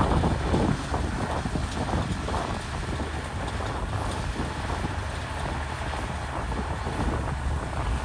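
Komatsu D61PX bulldozer's diesel engine running steadily, with wind buffeting the microphone. The sound eases a little about a second in.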